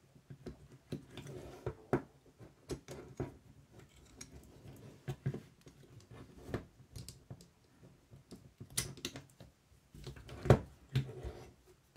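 A cassette deck tape transport mechanism being handled by hand: irregular small clicks, taps and rattles of its metal and plastic parts, with a couple of louder knocks near the end.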